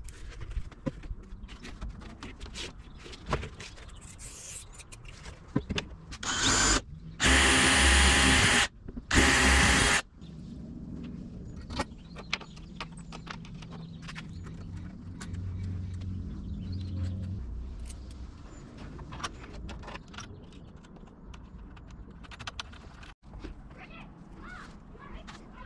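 A power tool runs in three short bursts, back to back, about six to ten seconds in. Scattered clicks and knocks of work on the camper walls come before and after.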